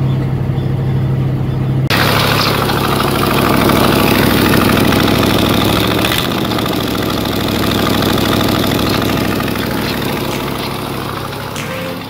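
1967 Lincoln Continental's 462 V8 idling, with the clatter of a bad exhaust leak that the owner puts down to a blown exhaust gasket. About two seconds in it suddenly gets louder and noisier, heard close up in the engine bay.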